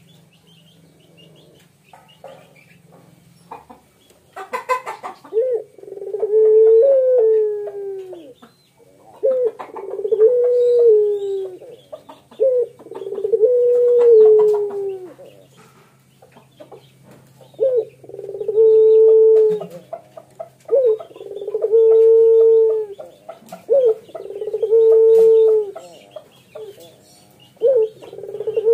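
Male ringneck dove (puter pelung) giving its bow-coo, the call of a courting or nesting male: a series of about seven long, drawn-out coos starting about four seconds in, one every three to four seconds. Each coo opens with a short note and then holds a long note.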